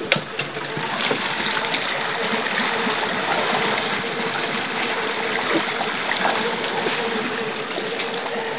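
Small outboard motor running steadily, with water washing past the hull. There is one sharp knock right at the start.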